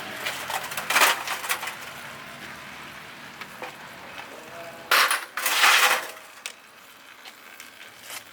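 Metal tools and parts clinking and knocking as they are handled, with a louder hissing rush about a second long just past the middle.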